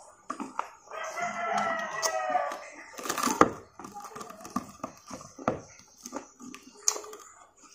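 A rooster crows once, a call of about a second and a half starting about a second in, over close crunching and chewing of crispy fried chicken. The loudest crunch comes a little after three seconds in.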